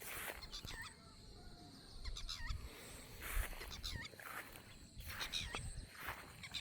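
Birds chirping over and over in short hooked notes, with a low rumble underneath.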